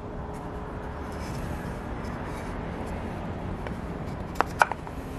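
Two sharp wooden knocks about a quarter second apart near the end, as the finger-jointed wood pieces are knocked together, over a steady background hum.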